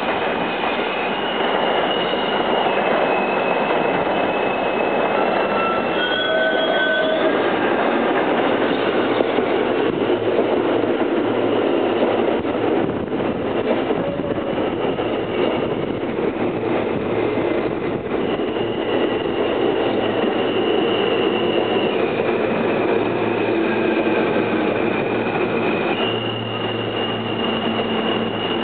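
R160B subway train pulling into the station and running close past: a steady rumble of wheels on rail, under a high whine from its electric propulsion that jumps between pitches every few seconds. A brief high squeal comes about six seconds in.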